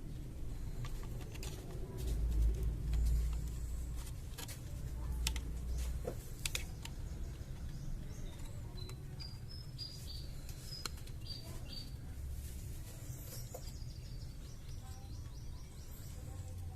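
Scattered sharp clicks and taps over a low rumble, with a short run of brief high chirps near the middle.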